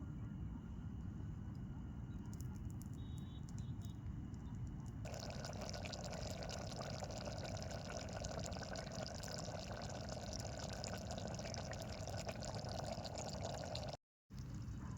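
Pot of pasta and Maggi noodles bubbling on a gas stove, with a steady hiss. The sound becomes brighter about five seconds in and drops out for a moment near the end.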